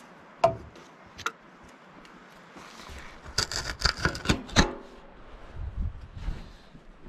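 Metal hand tools clinking and clattering on the steel track shoes as they are picked up and set down: two sharp clinks in the first second or so, then a quick run of rattling clinks near the middle, and a few soft low thuds after.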